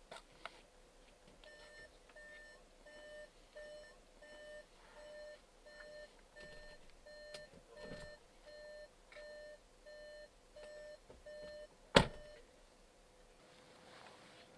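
A SEAT Ateca's warning chime beeping steadily, about three short beeps every two seconds, with the door standing open. Near the end the car door is shut with a single loud thud, and the beeping has stopped.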